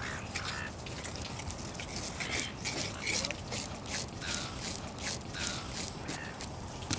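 Knife cutting and scraping through a gummy shark fillet: irregular clicks and scrapes, with a few faint short squeaks.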